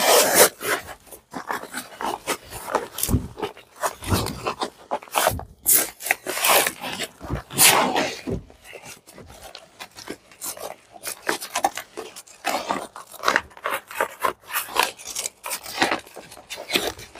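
A fabric plate-carrier vest being handled: irregular rubbing and rasping scrapes as a steel plate is worked into its pocket and the hook-and-loop straps are pressed and pulled.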